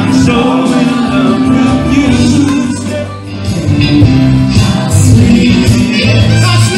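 Live band music: electric guitars played through amplifiers, with a man singing lead.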